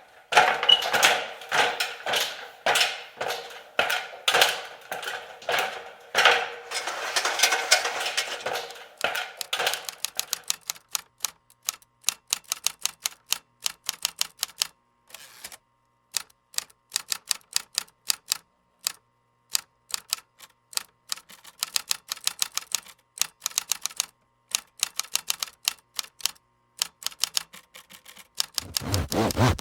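Mechanical typewriter typing: keys struck in quick clattering runs with short pauses. A different, steadier noise begins near the end.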